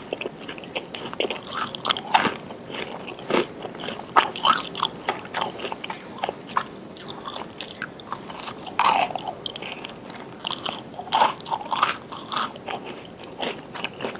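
A person biting and chewing a chocolate chip cookie, a steady run of short, irregular crunches and crackles.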